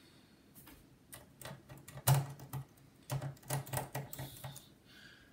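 Hand pressing an HP Pavilion laptop's bottom panel down along its edges, the case clips snapping into place. About ten irregular clicks and light knocks, the loudest about two seconds in.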